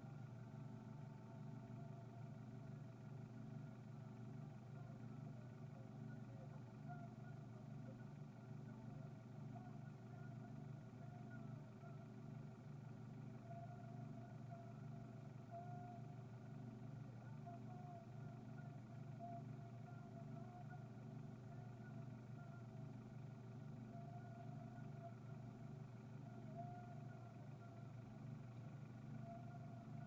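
A car engine idling, a faint, steady low hum.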